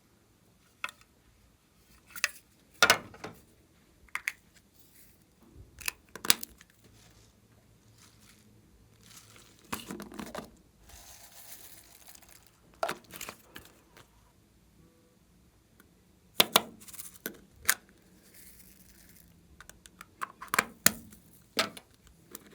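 Glossy slime being worked by hand, giving scattered sharp pops and crackles in small clusters, with a softer stretching, crinkly sound partway through.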